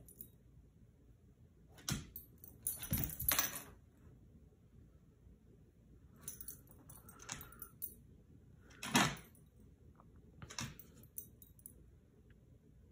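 Metal tags on a dog's collar jingling in about six short bursts as the dog moves and noses at the floor, the loudest about nine seconds in.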